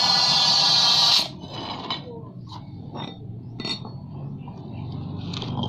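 Compressed air hissing from an air-hose nozzle into a motorcycle inner tube at its valve, inflating it to find a leak. The hiss cuts off about a second in, followed by faint knocks and rubbing as the rubber tube is handled.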